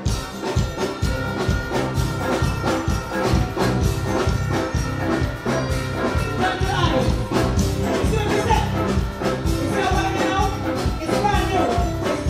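Live band music with a steady, driving beat, loud through a concert sound system, with a voice singing over it in the second half.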